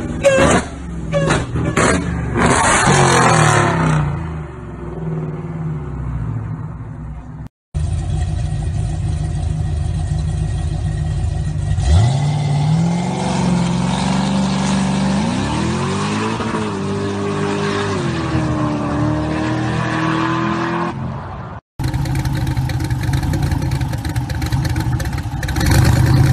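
Muscle-car engines in three short cuts. First a supercharged engine blipped in several sharp revs that then die down. Then a late-1960s Chevrolet Chevelle SS pulling away, its engine note rising and falling. Last a Chevy Nova drag car with its engine through the hood, idling roughly and revving up near the end.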